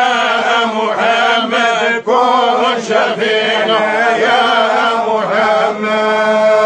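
Men's voices chanting a devotional Arabic refrain together in long, drawn-out phrases, over a low note held steady beneath. There is a brief break for breath about two seconds in.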